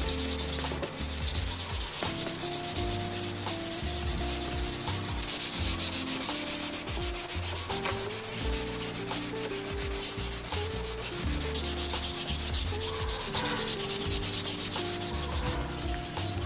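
Sandpaper rubbed by hand in quick, even back-and-forth strokes over a primed plastic scooter fairing panel, scuffing the spots that are about to be filled with body putty.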